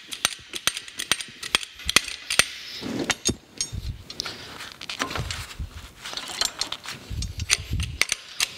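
Rapid, irregular metal clicks and clinks as a hydraulic bottle jack's screw extension is turned up by hand to seat against the press crossbar, with a few dull low knocks in the second half.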